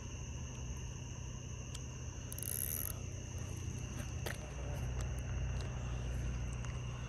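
Night insects singing in a steady high chorus, two even shrill tones running on without a break, over a steady low hum, with a few faint clicks.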